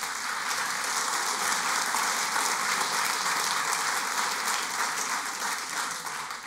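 A large audience applauding, a dense patter of many hands clapping, fading near the end.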